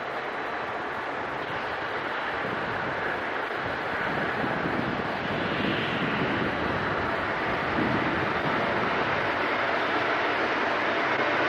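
A lash-up of Conrail diesel locomotives approaching and running under power, a steady rumbling noise that grows gradually louder as they draw near.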